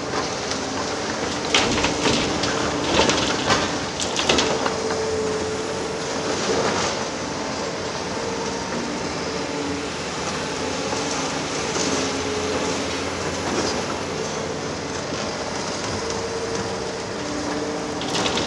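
Liebherr R 946 crawler excavator working: its engine and hydraulics run steadily with tones that shift up and down in pitch. A cluster of sharp metallic knocks and clanks comes in the first few seconds.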